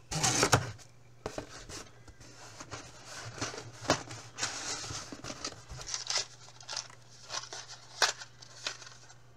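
Packing material rustling and crinkling as a hand rummages inside a cardboard box, in irregular short bursts with a few sharp clicks, loudest in the first second, over a faint steady hum.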